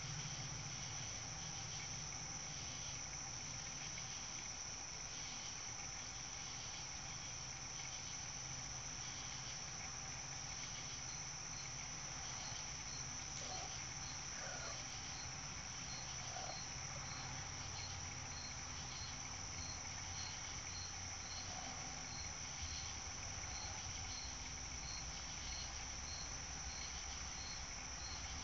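Evening chorus of crickets: a steady high-pitched trill, joined about a third of the way in by a fainter chirp repeating roughly once a second.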